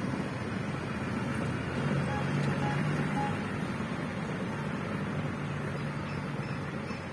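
Truck engine running as the elephant transport truck pulls slowly away, a steady low hum that swells slightly a couple of seconds in. Three short, faint peeps sound about two to three seconds in.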